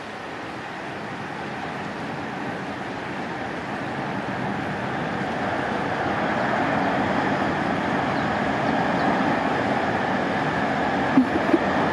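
Steady rumble of a passing vehicle, growing gradually louder, with two short knocks shortly before the end.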